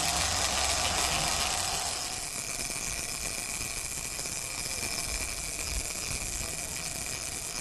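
Sportfishing boat under way: a steady engine rumble with the rush of the wake and sea. The noise eases slightly about two seconds in.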